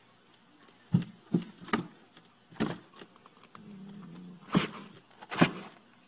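Cats batting and scrambling against a cardboard box, making about six hollow thumps and knocks spread over several seconds, with a short low wavering sound about halfway through.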